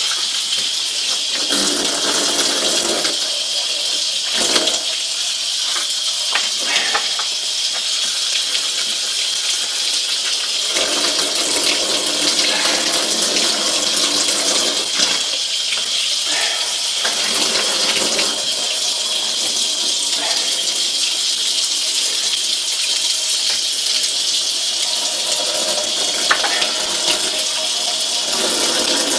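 Tap water running steadily into a metal sink and splashing over a chicken carcass as it is rinsed and rubbed by hand, with a few light knocks against the sink.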